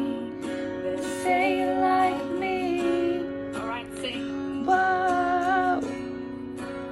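A woman singing a pop song, her own voice layered in two parts as a duet with herself, with several long held notes over a steady lower part. The voice is one she says is rough from days of coughing.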